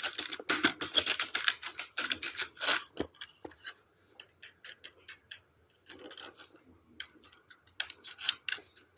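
Computer keyboard typed fast: a rapid run of keystrokes for about three seconds, then scattered single keystrokes with two short quick flurries, one about six seconds in and one near the end.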